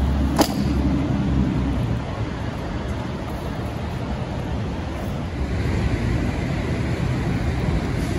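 Steady rushing noise with a low rumble, and one sharp click about half a second in.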